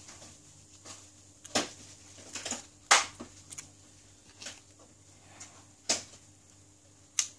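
Sharp clicks and taps of small hand tools and phone parts during a smartphone teardown, five or so spaced irregularly, the loudest about three seconds in.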